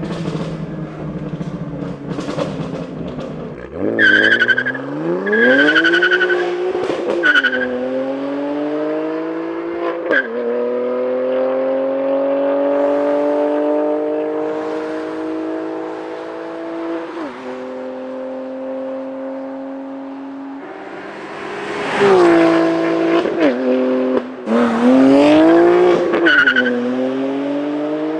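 BMW M2 Competition's S55 twin-turbo inline-six with an equal-length valved exhaust, accelerating hard: the revs climb and fall back sharply several times as it shifts through the gears.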